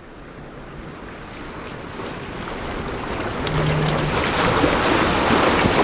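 Ocean surf washing against jetty boulders, building steadily louder, with wind on the microphone.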